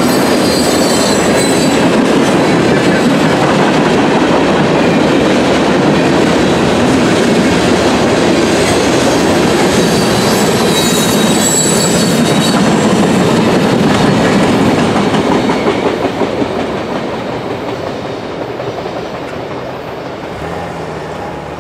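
Freight train's gondola cars rolling past, wheels clacking over the rail joints, with brief high wheel squeals. About 15 seconds in the last cars go by and the rumble fades away.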